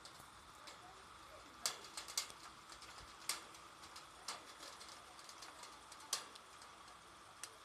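Light rain: a faint steady hiss, with irregular sharp taps of drops striking a hard surface every second or so.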